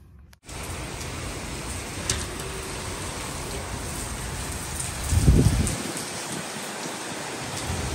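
Steady rain falling during Hurricane Fiona, with a short loud low rumble about five seconds in.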